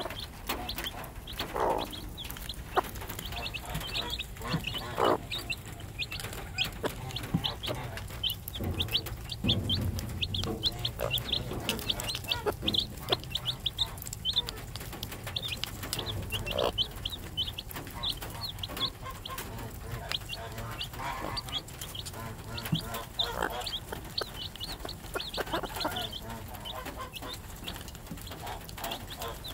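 Three-day-old chicks peeping in quick runs of short, high-pitched peeps, with the mother hen clucking now and then, lower and longer. Scattered small taps come from beaks pecking at a plastic feeder.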